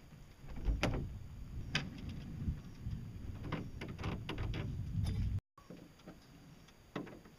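Metal clicks and knocks of a hand-built pedal crank assembly being turned and wiggled by hand in its bearing blocks, over a low rumble. The sound cuts off abruptly about five and a half seconds in, then a few quieter clicks follow.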